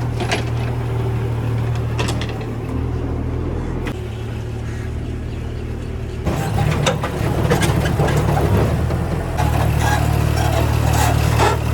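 Vehicle engine running steadily, a low hum that gets louder about six seconds in, with scattered clicks and knocks over it.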